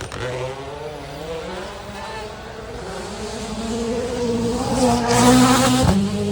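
Rally car engine approaching at speed, growing louder as its revs climb, loudest about five seconds in; the sound cuts off abruptly just before the end.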